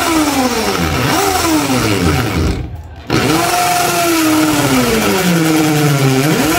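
Corded electric drill boring a hole: its motor whine sags in pitch as the bit bites under load and picks up again when the load eases. It stops briefly just under three seconds in, then restarts, bogs down slowly and spins back up near the end.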